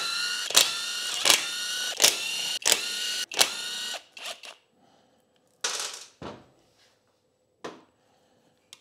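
Cordless impact driver running in bursts for about four seconds, backing a screw out of a motorcycle engine's side cover, its motor whine dipping and picking up again with each hard stroke. Then a few short metal clinks and a rattle from tools and parts being handled.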